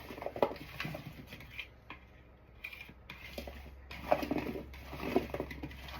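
Cut potato chunks being stirred through an oily seasoning mix with a small spatula: irregular clicks, scrapes and soft knocks of the spatula and potatoes against the bowl, thinning out for a moment midway and busy again in the second half.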